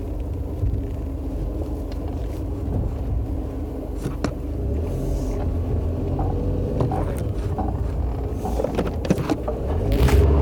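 Car running under acceleration: a low rumble with a steady drone, a few sharp clicks, and a rise in loudness near the end. This is the grinding noise that comes up when the car accelerates.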